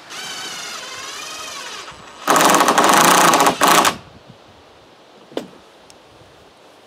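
Cordless drill/driver driving a screw into wood: the motor whines steadily for about two seconds, its pitch dipping briefly, then after a short pause comes a much louder rapid rattling run of about a second and a half, ending in one short final burst.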